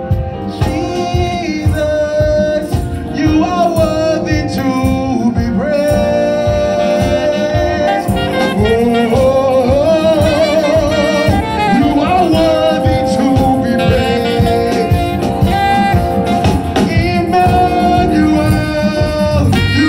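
Live gospel praise-and-worship music: voices singing a wavering melody over a band with a steady beat.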